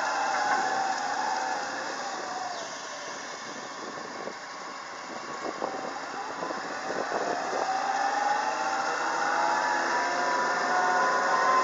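Komatsu PW150ES wheeled excavator's diesel engine and drive running as the machine drives along the road, with a whine. The sound fades in the middle and grows louder again near the end.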